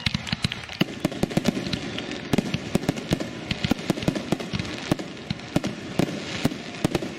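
Fireworks going off in a dense barrage: many sharp bangs a second over a continuous crackle.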